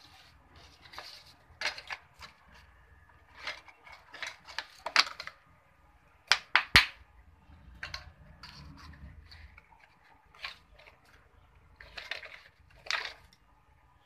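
Irregular light clicks and clinks, with three sharp knocks in quick succession about six and a half seconds in.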